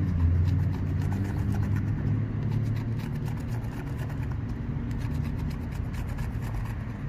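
A coin scraping the coating off a scratch-off lottery ticket in quick repeated strokes, over the steady low hum of a vehicle engine idling.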